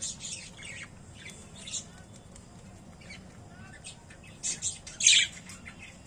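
Budgerigars chirping and squawking in short, high-pitched calls, in scattered clusters, the loudest squawk about five seconds in.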